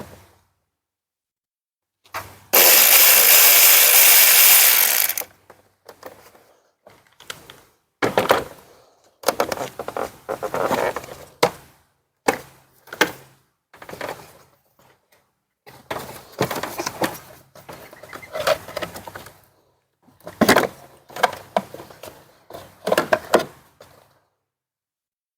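Hands opening a plastic air box and swapping the air filter: a run of short clatters, knocks and rattles. About two seconds in there is one loud, even rushing noise lasting about three seconds.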